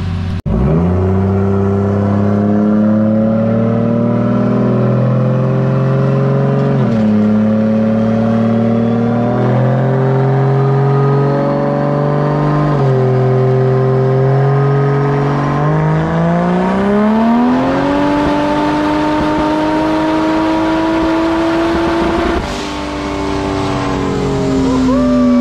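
Turbocharged 2JZ straight-six in a Toyota 4Runner run hard on a chassis dyno. The engine pitch climbs, drops back sharply several times, then rises steeply to a high held note before the throttle comes off about 22 seconds in.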